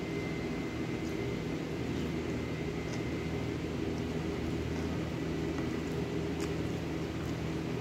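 Steady low mechanical hum of a running room appliance, unchanging in level, with a faint high whine in the first few seconds and a few faint clicks.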